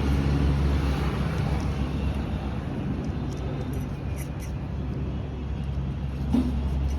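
A steady low mechanical hum that holds an even pitch throughout, with a faint haze of background noise above it.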